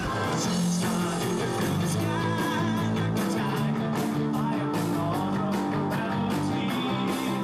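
Rock band playing: electric guitar and singing.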